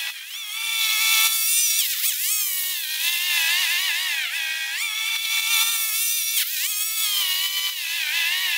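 Background music: a high melody whose pitch slides and wavers.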